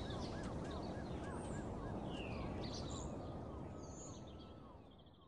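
Outdoor ambience of birds chirping over a low rumble. A run of quick repeated chirps comes in the first two seconds, then scattered higher calls, and everything fades out near the end.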